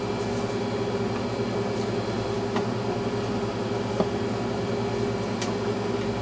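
Steady background hum and hiss of room tone, with a few faint ticks from hands working the clay piece.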